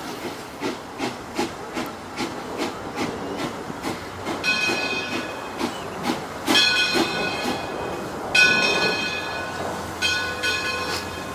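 Steam locomotive (1897 Baldwin, Detroit & Lima Northern 7) running with a steady beat of about two to three a second and a hiss of steam. From about four seconds in, its steam whistle sounds four blasts of about a second each, the last one shorter.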